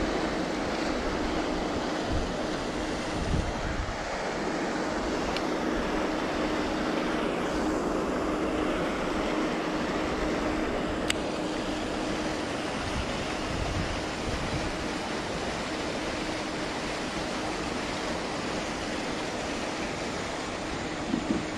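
Steady rushing outdoor noise with wind buffeting the microphone, and a faint steady hum under it that fades away a little past halfway. A single sharp click about eleven seconds in.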